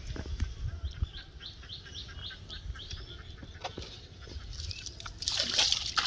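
A small bird calling a quick run of short, repeated chirps, about four a second, for a couple of seconds. From about five seconds in, loud splashing and sloshing of water as a freshly caught carp is handled into a basin of water.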